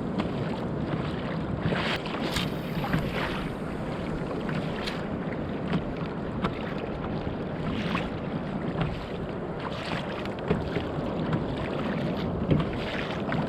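Water lapping and splashing around a kayak, with wind on the microphone and a scattering of short sharp splashes.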